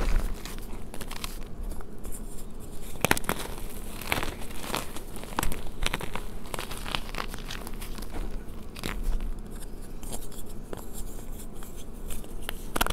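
Reformed gym chalk being crushed and crumbled between the fingers in a tray of chalk powder: an irregular run of soft gritty crunches and crackles, with a few sharper snaps standing out.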